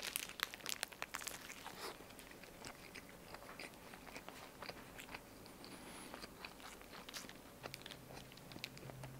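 A person chewing a spam musubi, a rice ball wrapped in crisp nori, close to the microphone. Soft crunching and small mouth clicks are busiest for about the first two seconds, then turn fainter and sparser.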